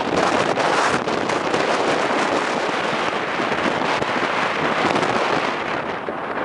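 Wind buffeting the camera microphone: a loud, rough rush broken by many crackling gusts.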